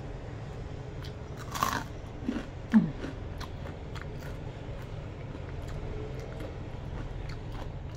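Crunchy bites and chewing of deep-fried chicken skin in a tapioca-flour crust, with one loud crunch about a second and a half in and small crackling crunches throughout.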